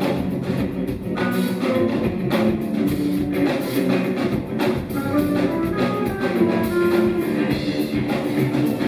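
A live rock band playing an instrumental passage with no vocals: a drum kit keeps a steady beat under guitar and bass notes.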